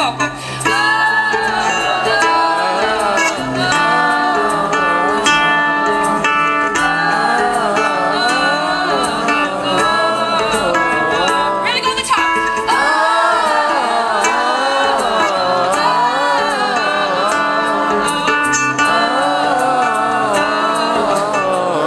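Live acoustic folk song: a wavering melody sung without words over a small strummed string instrument, with an egg shaker keeping a steady rhythm.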